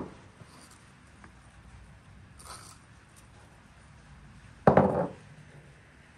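Wooden kitchenware knocking sharply against a wooden surface about three-quarters of the way in, after a faint brief rustle as spice is sprinkled from a small wooden bowl.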